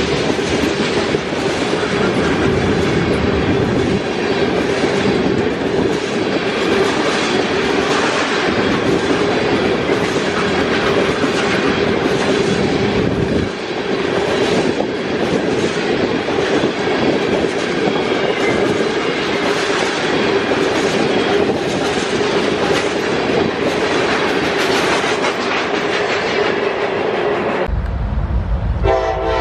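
Railroad cars of a train rolling past with wheels clicking over the rail joints and a steady ringing tone underneath. Near the end the sound changes abruptly to a low rumble.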